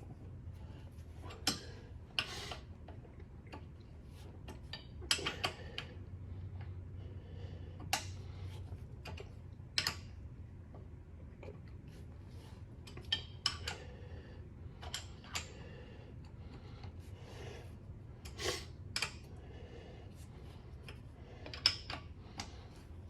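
Scattered metal clinks and taps from tools and hardware being handled while a table support is fitted to a drill press, at irregular intervals over a steady low hum.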